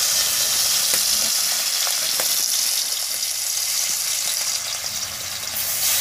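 Rohu fish pieces sizzling steadily as they fry in hot oil in a steel kadai. The sizzle swells near the end as a second piece goes into the oil.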